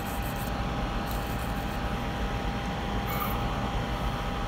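Soldering fume extractor fan running steadily: a low whir with a faint steady whine.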